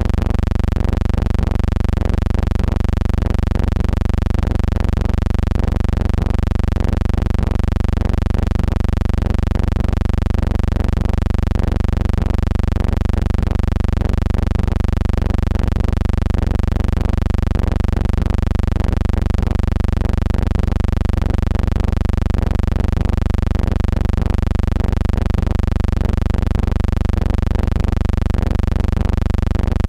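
A steady low hum with no speech, pulsing faintly and evenly about twice a second.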